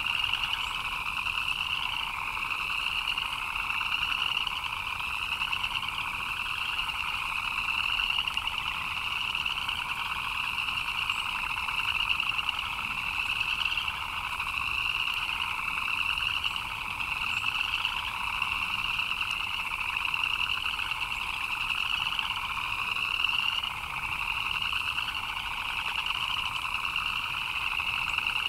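A dense chorus of many frogs chirping without a break, steady in loudness, with overlapping short rising calls repeating about once a second.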